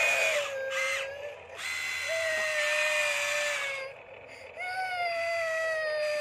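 Remote-control model excavator's small electric motors whining as the boom and bucket move, in three runs of a second or two each, the pitch sagging slightly as each run goes on.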